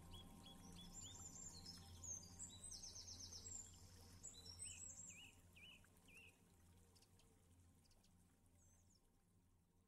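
Faint birds chirping and trilling over a low steady hum, fading out toward near silence in the second half.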